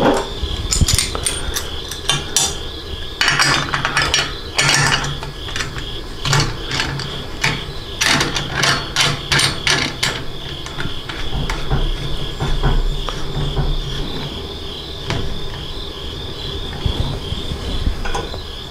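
Stainless steel still parts clinking and a clamp fitting rattling as the condenser is fitted onto the top of the column: a run of sharp metal clicks and taps over the first ten seconds or so, fewer after. A steady high chirping of insects runs underneath.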